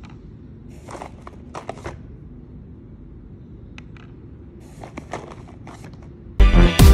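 Small hard plastic clicks and taps as miniature plastic toy bottles are set down in a clear plastic bento box compartment, in two short clusters, about a second in and again around five seconds in. Loud electronic dance music cuts in abruptly near the end.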